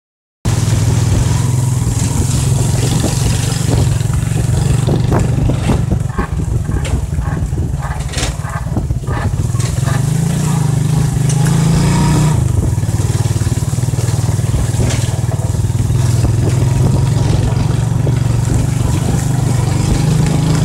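Motorcycle tricycle's engine running steadily while riding. Its pitch rises for a couple of seconds about halfway through, then drops back.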